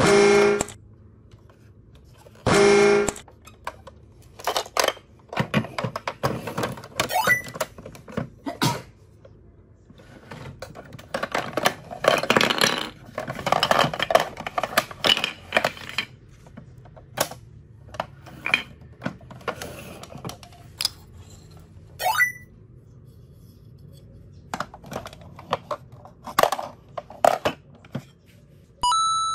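Hard plastic knocks, clicks and rattles as a large plastic Thomas the Tank Engine toy is handled, its hinged flap opened and plastic blocks moved about inside it. Two short tones sound in the first three seconds and a brief beep near the end.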